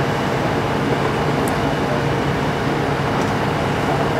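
A heavy engine running steadily, a constant drone with an even hum under it.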